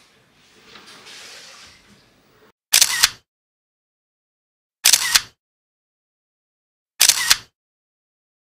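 Camera shutter click sound three times, about two seconds apart, each a quick double click with dead silence between: a shutter sound effect marking each photo shown. Before the first click, soft rustling of cardboard and packing paper.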